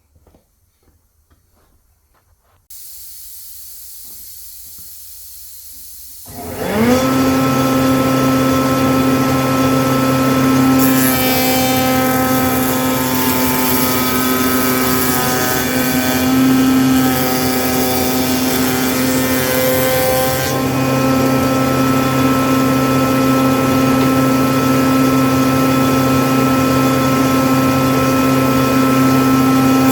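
A few small clicks, then a steady hiss starts about three seconds in. A few seconds later a high-speed router spins up with a rising whine and runs steadily at speed. The sound turns harsher from about eleven to twenty seconds in, as the cutter works through the wood cutting the joining grooves.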